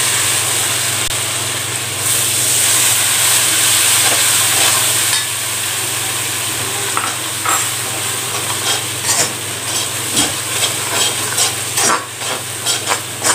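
Cornflour slurry sizzling in hot oil in a metal kadai as a steel ladle stirs it, loud at first and easing after about five seconds. From then on the ladle scrapes and clinks against the pan several times a second, more busily near the end.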